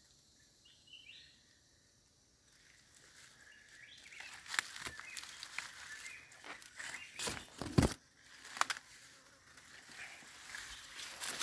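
Footsteps crunching over dry leaf litter and twigs, with leaves and branches brushing past. They start about three seconds in and go on as irregular crackles, with one loud snap near the middle.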